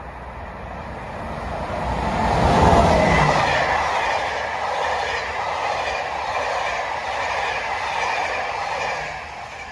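A train passing at speed: the noise builds to its loudest about three seconds in, holds as a steady rush of wheels on rail, then fades near the end.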